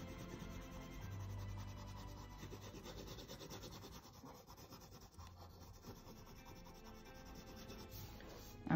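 Coloured pencil rubbing on paper in quick back-and-forth shading strokes as a large area is filled in with yellow, faint and scratchy. A brief louder sound comes right at the end.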